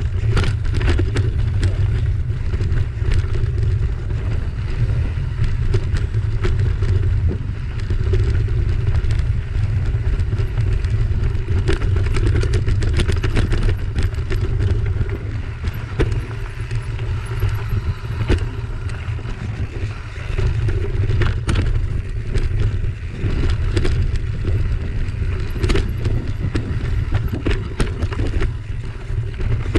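Mountain bike riding a rocky, loose singletrack: tyres crunching over gravel and stones, with frequent sharp knocks and rattles from the bike as it hits rocks. Heavy wind rumble on the camera microphone runs underneath.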